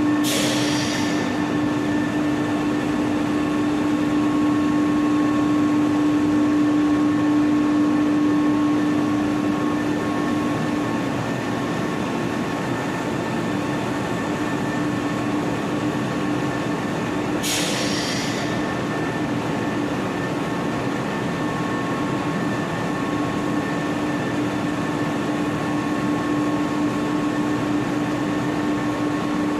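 Electric floor-cleaning machine running with a steady, loud motor hum and whine. Two brief hissing swishes break in, one right at the start and one about 17 seconds in.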